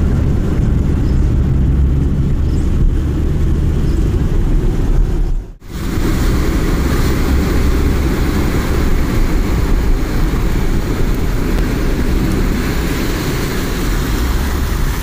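Heavy rain and rushing floodwater heard from a car. A low, steady rumble from the car runs for about five seconds, then breaks off briefly. After that a brighter, steady rushing of water takes over.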